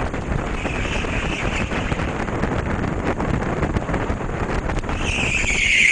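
Indoor go-kart running at speed, its engine and tyre noise heard from an onboard camera. A louder, high-pitched hiss builds about five seconds in and is the loudest part.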